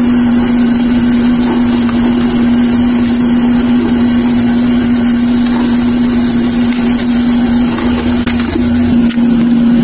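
Electric air blower running steadily, forcing air into a charcoal furnace: a constant hum with a rush of air.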